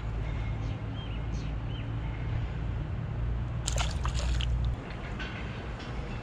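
Water splashing at the river surface for under a second, about four seconds in, over a steady low rumble.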